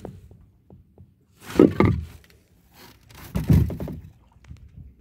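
Two dull, heavy thumps about two seconds apart, with a few light knocks between them.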